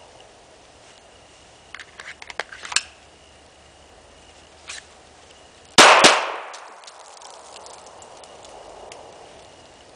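Two handgun shots a quarter second apart, a double tap, with the echo trailing off over about a second. A few seconds before them comes a scatter of light clicks, and a single click follows later.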